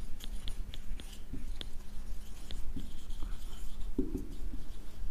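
Felt-tip marker writing on a whiteboard: a string of short, irregular strokes and ticks of the tip as a line of words is written.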